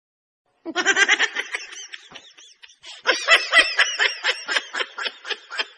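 Laughing sound effect: a high-pitched laugh in rapid rhythmic bursts, starting about half a second in and tailing off, then a second bout from about three seconds in.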